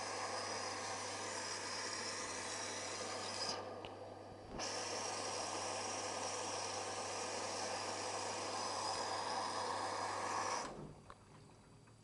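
Tricity Bendix AW1053W washing machine filling with water for the rinse: a steady rush of water through the inlet with a low hum beneath it. It breaks off for about a second early in the fill, resumes, then stops shortly before the end.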